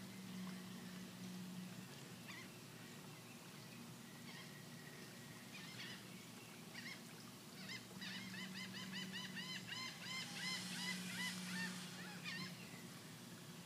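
A bird calling: scattered single chirps, then a quick run of short arched chirps, about three a second, through much of the second half. A steady low hum runs underneath.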